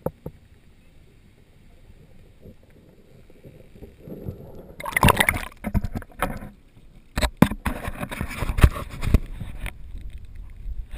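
Muffled low underwater water noise from a GoPro held below the surface, then loud splashing and water sloshing as the camera is lifted out of the sea about five seconds in. After that come irregular splashes and several sharp knocks of water on the camera housing.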